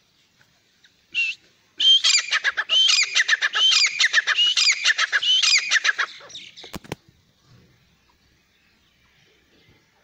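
Grey francolin calling: a single short note, then a fast run of loud, shrill, repeated call notes lasting about four seconds. A sharp click follows just before the calling has fully died away.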